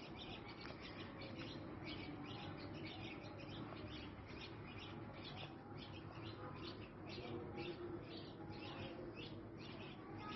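A group of small birds, bulbuls among them, chirping all the time with many quick overlapping chirps.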